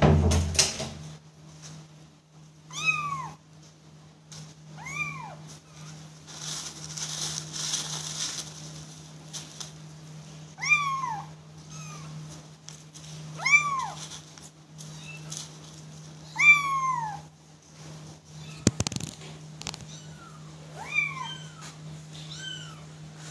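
Young kittens mewing: thin, high calls that rise and fall, repeated about every two to three seconds, some eight in all. One sharp knock late on.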